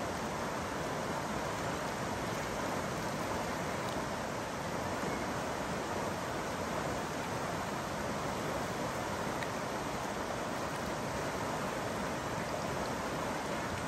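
The South Santiam River rushing over a rocky riffle: a steady, unbroken sound of flowing water.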